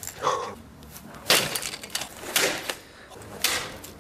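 Axe striking a laptop: a series of sharp, cracking hits about a second apart, the loudest about a second in, as the plastic case breaks.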